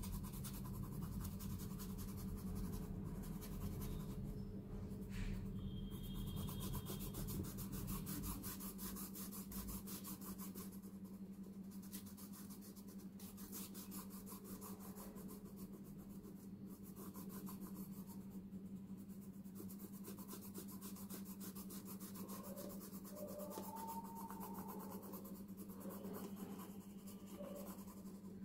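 Apsara pencil shading on paper: soft, steady scratching and rubbing of graphite strokes, with a low steady hum underneath.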